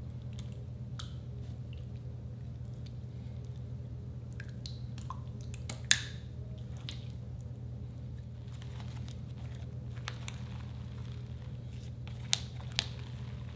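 Slime being stretched, squeezed and pressed by hands, giving soft sticky squishes and clicks, with a sharp pop about six seconds in and two more near the end. A steady low hum runs underneath.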